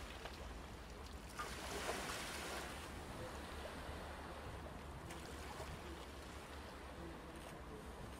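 Inshore lifeboat's engine running faintly on the harbour water, a steady low rumble with water washing over it. A brief louder rush of water comes about a second and a half in.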